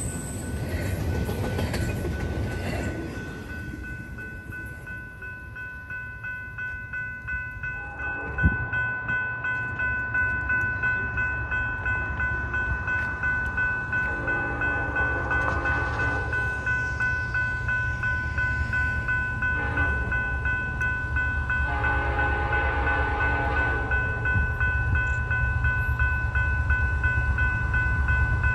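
The last cars of a double-stack freight train rumble past on steel wheels. An approaching Norfolk Southern freight then sounds its air horn: a long blast about halfway through, a short one, another long one, and a fourth beginning at the very end, over a low rumble that grows louder. A steady high ringing tone runs underneath.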